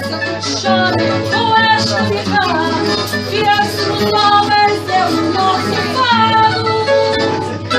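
Fado: a singer's long, wavering sung lines over plucked guitar accompaniment, with a steady low hum underneath.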